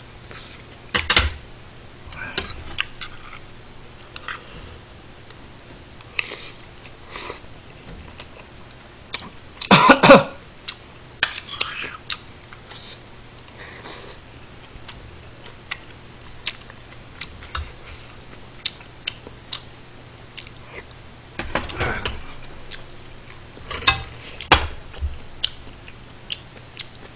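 Eating sounds: metal chopsticks and a spoon clicking and tapping against dishes, with chewing and sipping of kimchi stew, over a faint steady hum. One louder burst comes about ten seconds in, and a few sharp clatters come about two-thirds of the way through.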